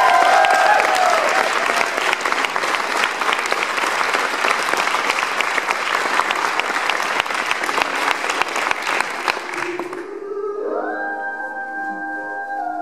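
Audience clapping steadily. About ten seconds in the applause fades out and music with long held notes begins.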